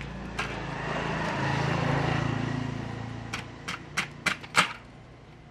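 A passing motor vehicle's engine swells and fades over the first three seconds. Then five sharp metal clicks come in quick succession, the last the loudest, as a motorcycle front-fork tube and its inner rod are worked by hand.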